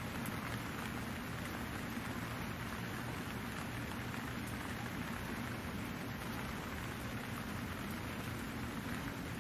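Steady, even hiss with a faint low hum beneath it, unchanging throughout.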